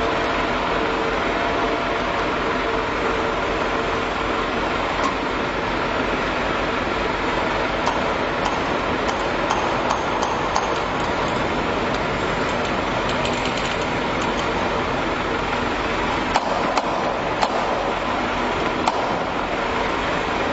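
Steady, loud running noise of industrial machinery, with scattered sharp clicks and knocks in the second half.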